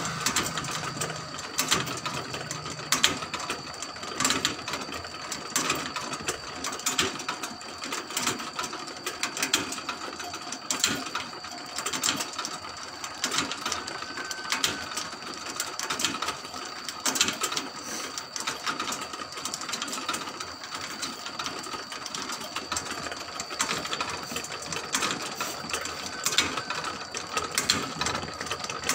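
Motor-driven rotisserie spit turning, its chain and sprocket drive clicking and rattling continuously, with a steady high tone underneath.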